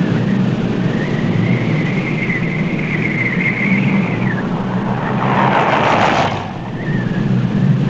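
Small truck driving through blowing snow: steady engine and wind noise with a high wavering whistle, then a rush of noise as the truck passes close about five to six seconds in.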